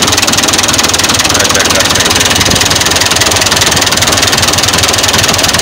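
HH Dabung tractor's diesel engine idling steadily with a rapid, even beat, seconds after a cold start.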